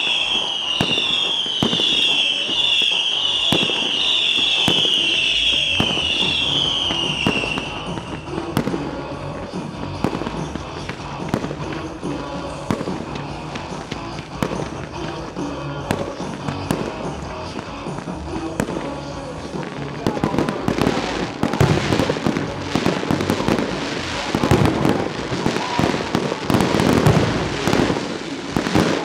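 Pyromusical fireworks display: shells and comets bursting and crackling over the accompanying music. For the first several seconds a string of short falling whistles repeats, and from about twenty seconds in the bangs come thick and fast.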